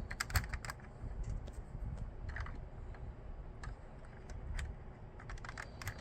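Irregular small plastic clicks and taps as the missiles of a vintage G.I. Joe Rattler toy plane are fitted back onto their holders, over soft handling noise.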